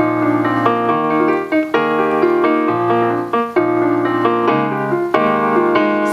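Piano or keyboard music playing, chords and a bass line moving note by note.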